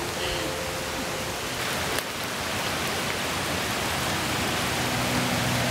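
Shallow, rocky Doe River rushing over stones: a steady wash of water noise that grows a little louder in the second half.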